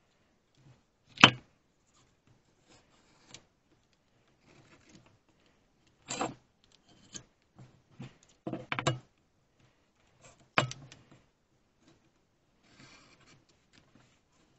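A few separate knocks and clinks of tools or metal parts being handled and set down, the loudest and sharpest about a second in, with faint scuffs between.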